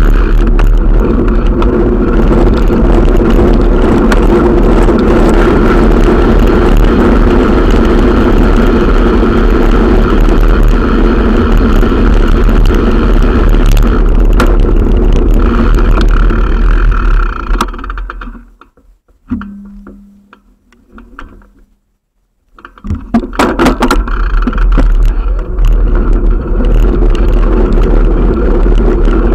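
Loud, steady wind rush and rolling noise on a bicycle-mounted camera's microphone while riding. About two-thirds of the way through it drops almost to silence for a few seconds, with a brief low hum, then returns.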